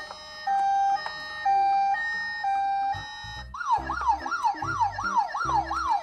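Toy ambulance's electronic siren: a two-tone hi-lo wail switching pitch about every half second, changing a little past halfway to a fast up-and-down yelp about three sweeps a second, with a low pulsing beat underneath.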